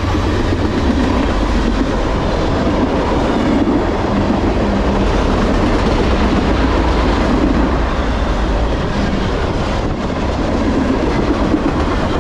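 Freight cars of a manifest train rolling past at about 49 mph: steel wheels running on the rails in a loud, steady rumble.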